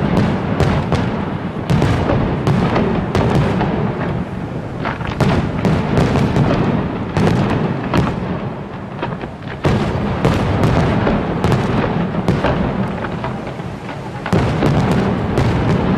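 Aerial fireworks display: shells bursting in a rapid, near-continuous barrage of booms and sharp cracks over a steady low rumble, with only brief lulls.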